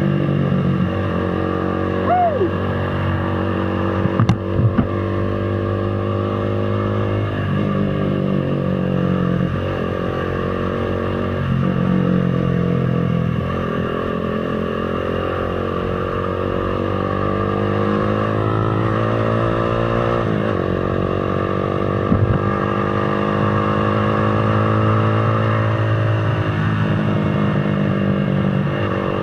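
Motorcycle engine running on the move, its pitch climbing and dropping several times as the revs change, with a few short knocks along the way.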